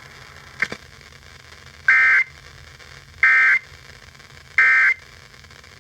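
Emergency Alert System end-of-message data bursts: three short, identical buzzy digital tones about a second apart, the SAME 'NNNN' code that closes an EAS warning. A brief click comes just before the first burst.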